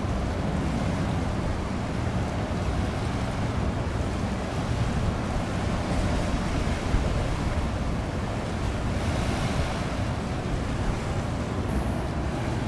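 Steady wind rumbling on the microphone over the wash of choppy sea water.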